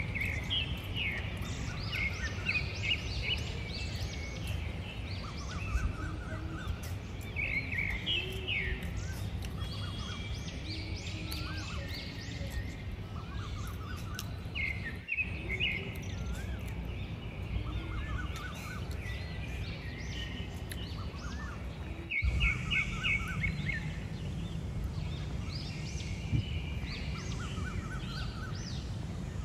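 Small birds chirping and twittering, short quick runs of calls every second or two, over a steady low outdoor background rumble.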